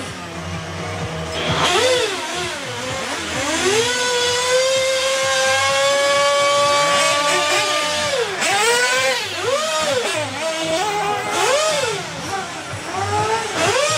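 Small nitro engine of an RC off-road buggy revving. Its high-pitched whine swoops up and down several times, holds high and steady for a few seconds in the middle, then rises and falls again in quick swells.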